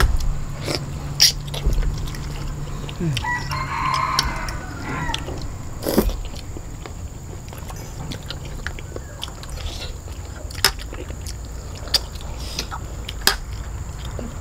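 Eating at a table: chewing and scattered sharp clicks of plastic spoons and metal forks against a plate. A rooster crows in the distance about four seconds in.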